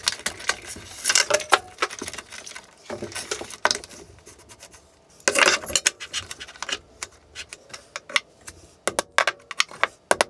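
Irregular clinks, clicks and scrapes of metal parts being handled and positioned on the CNC machine's bed: the probe button mount, its cable and a steel ruler. Near the end comes a quick run of sharp metal taps as a hammer strikes a parallel punch to mark the mounting-hole positions.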